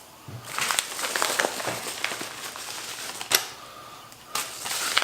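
Small plastic packaging crinkling and rustling in the hands, with small clicks as the parts of a phone camera-glass repair kit are handled, and one sharper click a little past the middle.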